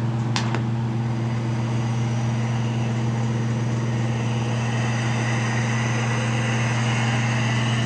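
Carlisle CC glassworking bench torch running at its big flame, a steady roar with a low hum. A faint high whistle joins about halfway through.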